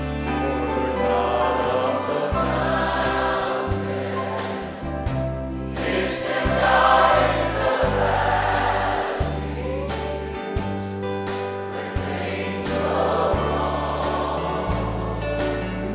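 Choir singing a gospel song with instrumental accompaniment. A bass line changes note about once a second, and the singing swells loudest about seven seconds in.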